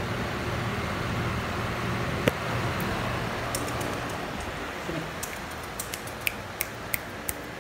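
Steady whir of a floor fan, with a scatter of sharp clicks in the second half.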